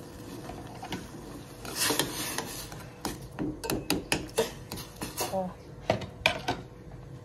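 A metal spoon stirring rice in a stainless steel pot, clinking and scraping against the pot's sides and bottom in a quick string of sharp knocks.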